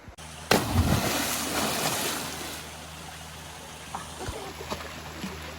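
Rushing water of a small mountain waterfall and its pools, with a sudden loud rush about half a second in that fades over the next couple of seconds into a steady noise.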